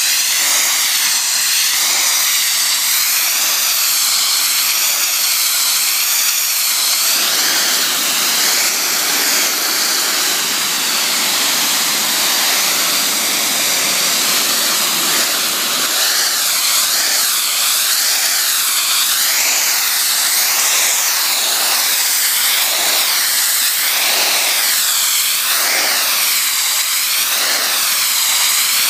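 Pressure washer spray jet striking brick pavers: a loud, steady hiss whose tone wavers as the wand is swept back and forth. Near the end it pulses about once a second.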